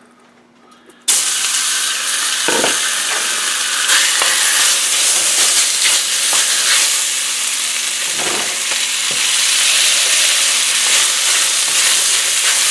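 Marinated beef strips hitting a screaming-hot wok, a loud sizzle starting suddenly about a second in and holding steady while they are stirred with a wooden spatula, with a couple of knocks along the way.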